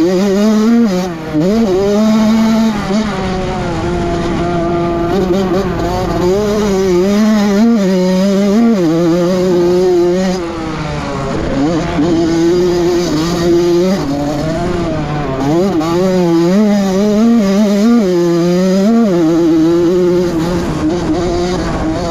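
Honda CR85 two-stroke motocross bike engine being ridden hard, its pitch rising and falling constantly as the throttle is worked, with brief drops about a second in and again around ten seconds in.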